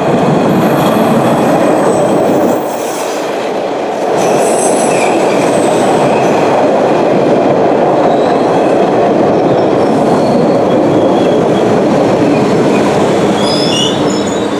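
MBTA Orange Line subway train of Hawker Siddeley-built cars pulling into the platform, a steady loud rumble of wheels on rail. High-pitched squealing comes in near the end as it slows to a stop.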